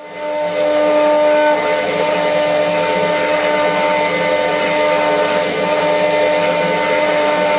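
CNC router spindle running with a small end mill engraving letters into a brass plate: a steady whine of several held tones over a gritty cutting noise. It rises in over the first second.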